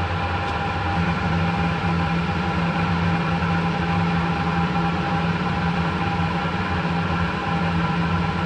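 Harrison lathe running at a steady speed, with a steady hum and a clear higher tone, while the tool turns down a 17 mm hex bar.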